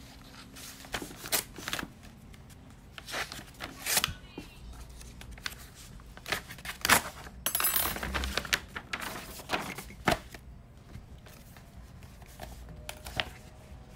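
A bid envelope being opened and its paper contents handled: irregular paper crackles, rustles and small taps and clicks, with a longer stretch of rustling about eight seconds in.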